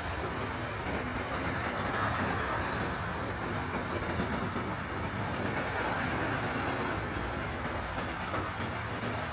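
Intermodal freight train of container and trailer wagons rolling past, a steady rumble of steel wheels on the rails.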